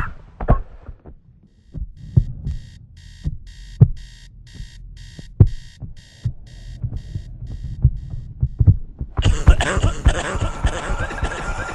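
Low heartbeat-like thumps under a high beeping pulse that repeats two to three times a second. About nine seconds in, a loud harsh noise cuts in and takes over.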